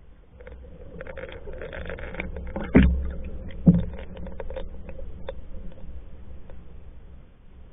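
Water sloshing and crackling along a Hornbeck pack canoe's hull, heard muffled from underwater, with two loud dull knocks about a second apart near the middle.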